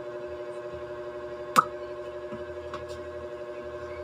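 A steady hum made of several fixed tones, with one sharp click about a second and a half in and two faint ticks about a second later.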